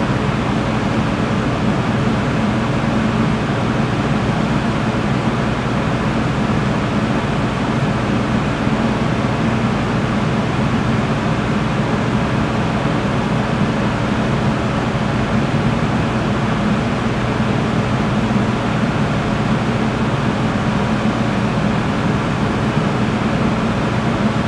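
Steady rushing hum of a ventilation fan, with a low drone under the air noise. It does not change.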